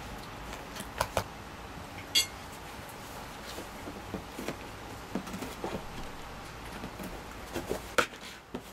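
A cat gnawing and clawing at a cardboard box: irregular crackles, scrapes and sharp clicks of cardboard. The loudest clicks come about a second in, just after two seconds, and near the end.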